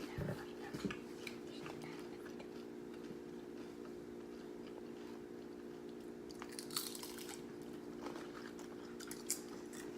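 Crunching and chewing of nachos made with Nacho Cheese Doritos, as scattered crisp bites that cluster between about six and nine and a half seconds. A steady low hum runs underneath.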